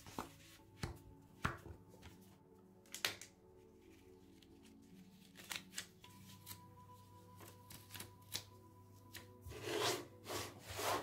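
Gloved hands handling a plastic warranty card and paper leaflet: scattered light taps, flicks and rubs, with a louder stretch of rustling and scraping near the end, over soft background music.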